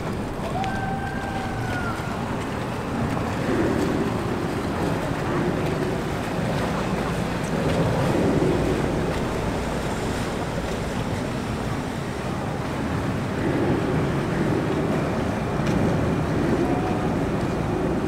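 A motorboat running past on the lake, over a steady wash of water and wind, with cars driving across the highway bridge overhead; the sound swells and eases several times.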